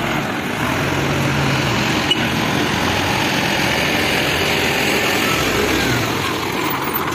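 Tata 3118 multi-axle truck's diesel engine idling steadily.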